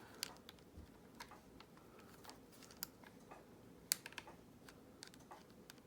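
Faint, irregular clicking and ticking of plastic clips and shell parts on a Squawkers McCaw toy parrot being worked loose by hand, with a few sharper clicks around the middle.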